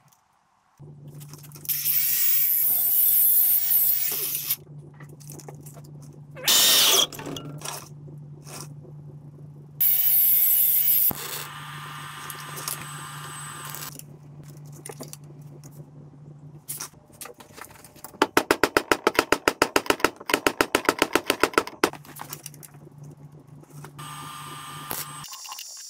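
Metal fabrication at a workbench: a steady low hum with several loud crackling, hissing bursts of MIG welding lasting a second or a few seconds each. Near the end comes a few seconds of rapid, evenly spaced clicking.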